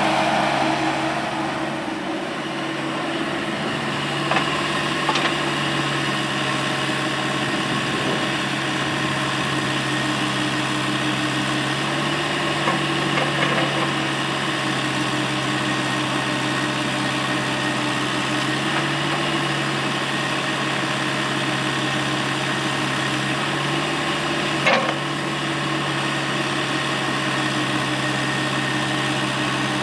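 Cat 305E mini excavator's diesel engine running steadily at a constant speed, with a few short knocks, the loudest about 25 seconds in.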